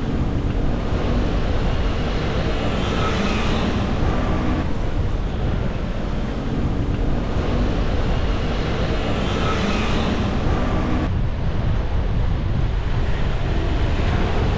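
Wind rushing over the microphone during a bicycle ride, over a low rumble of city traffic. The noise swells twice, and its character changes abruptly about two-thirds of the way through.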